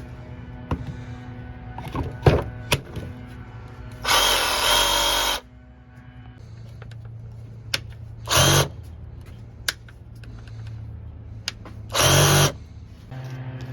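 RYOBI ONE+ 18V cordless reciprocating saw run in three short bursts: a longer run of about a second, then two brief trigger pulls. A few sharp clicks come before the bursts.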